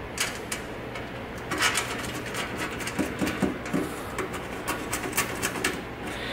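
Scattered light clicks, knocks and short scrapes of small parts being handled and fitted against a coffee grinder's sheet-metal housing.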